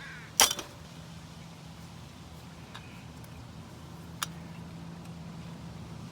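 Metal hand tools and a brake return spring worked against a 2002 Jeep Liberty's rear drum brake shoes: one sharp metallic clack about half a second in, then a couple of faint ticks, over a steady low hum.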